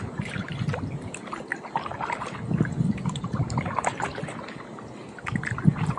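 Kayak paddling: the paddle blades dip into calm water, which splashes and drips in irregular small clicks and trickles.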